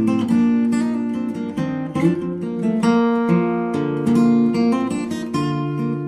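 Background music: an acoustic guitar playing a steady run of plucked notes and strummed chords.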